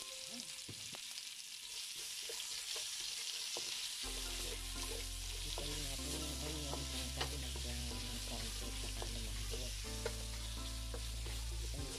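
Sliced onions sizzling in hot oil in a wok, stirred with a wooden spatula that taps and scrapes against the pan now and then.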